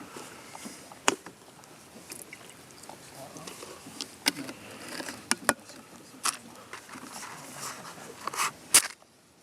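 Scattered sharp clinks and knocks of hard objects being handled, with faint voices behind; the sound cuts off abruptly near the end.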